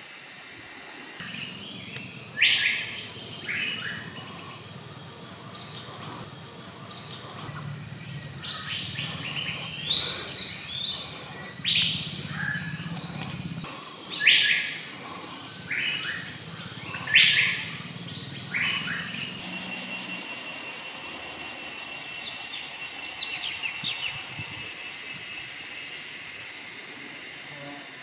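Forest ambience: loud, short bird calls repeated over a fast, evenly pulsing insect buzz and a low hum. The pulsing and the hum cut off abruptly about two-thirds of the way through, leaving scattered fainter chirps and a thin steady insect whine.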